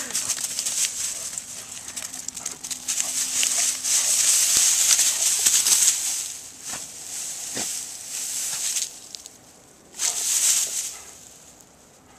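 Dry grass rustling and crackling as a Rhodesian Ridgeback pushes and roots through it. The rustling is heaviest in the first half, thins out, and returns in a short burst near the end.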